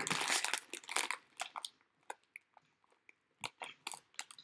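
Foil biscuit packet crinkling and crackling as it is pulled open by hand: a dense run of crackles in the first second, then scattered crinkles and clicks.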